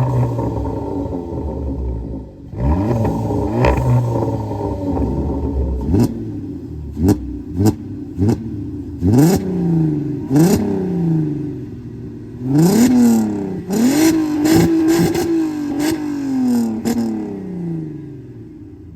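Tuned VW Golf engine with an aftermarket exhaust being revved while standing: a steady run at first, then a string of quick rev blips that each rise and fall, and near the end a longer rev held high before dropping back to idle.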